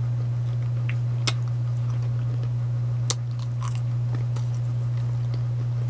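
Crisp rosemary cracker crunching as it is bitten and chewed, with a few sharp crunches, the strongest about a second and about three seconds in. A steady low hum runs underneath.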